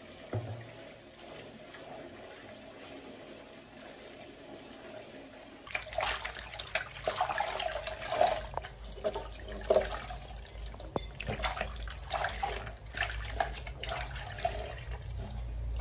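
Tap water running into a plastic basin of soapy laundry. From about six seconds in it grows louder, with splashing and a series of sharp knocks.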